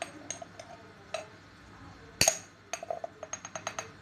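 Metal spoon clinking against a container as ground turmeric is spooned into a bowl: a few light clinks, a louder knock about two seconds in, then a quick run of small taps, about nine a second.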